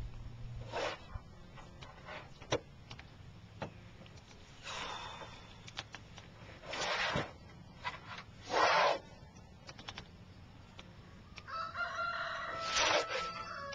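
A rooster crowing once near the end, a long call with a rough, pitched ring. Before it come several short noisy sounds, the loudest about two thirds of the way through.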